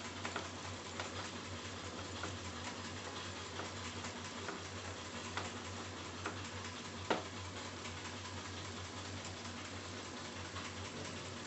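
A wooden spatula stirring chopped okra and tomato in a nonstick pan, scattered light clicks and taps of the spatula against the pan over a steady hiss, one sharper knock about seven seconds in.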